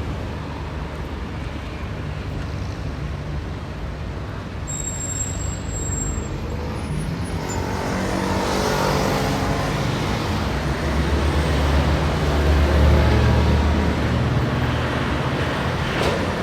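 Street traffic: a steady flow of passing vehicles, with a brief high squeal about five seconds in. A heavy vehicle's deep engine rumble then swells past the middle and is loudest near the end as it goes by close.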